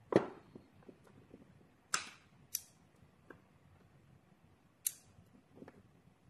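Magnetic rings and steel balls clicking together as they are snapped into place by hand: a handful of sharp metallic clicks at irregular intervals, the loudest in the first second.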